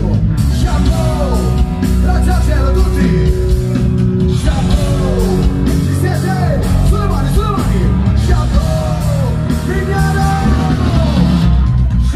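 Loud amplified live band music, with electric bass and drums under a lead voice singing throughout.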